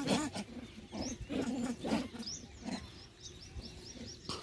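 A troop of macaque monkeys calling in the first two seconds, with birds chirping repeatedly through the second half. There is one sharp click near the end.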